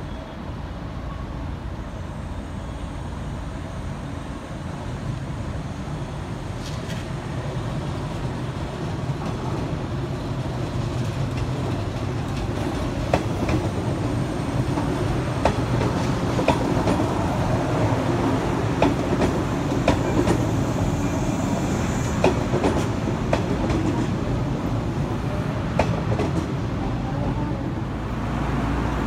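A JR Series 103 electric multiple-unit train pulling into the station. Its rumble grows steadily louder as it approaches. From about halfway, its wheels click sharply over rail joints and points.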